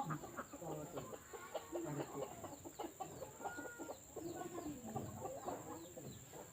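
Chickens clucking, with many short calls following one another.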